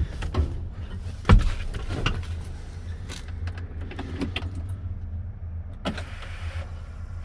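International 7500 truck's diesel engine idling after a cold start, a steady low rumble broken by irregular sharp knocks, the loudest about a second in. The owners suspect at least one bad injector.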